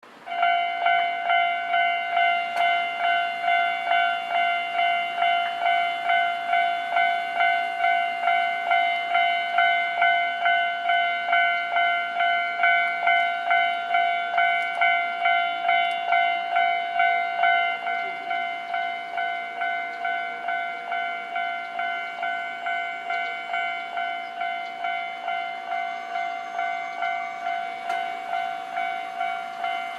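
Japanese level-crossing warning bell ringing, an electronic ding repeated evenly about twice a second: the crossing is closed for an approaching train. A little past halfway it drops in level and keeps ringing.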